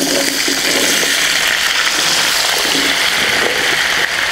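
Raw potatoes frying in a pan of hot clarified butter (ghee): a loud, steady sizzle that starts as they go into the fat.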